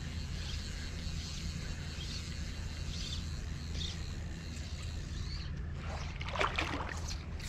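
Steady low outdoor rush with a faint hiss, and a short burst of rustling about six seconds in as a fly rod is cast, the fly line and jacket sleeve moving.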